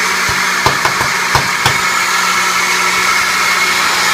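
Oster countertop blender running steadily, blending a pink smoothie, with a constant motor hum. A few sharp knocks come in the first two seconds.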